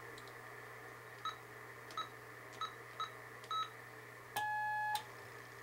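Kenwood TS-450S HF transceiver: five short, high keypad beeps about half a second apart as a new frequency is keyed in. About four seconds in comes a lower steady tone for about half a second: the CW sidetone as the carrier is keyed for an SWR check. A low steady hum runs underneath.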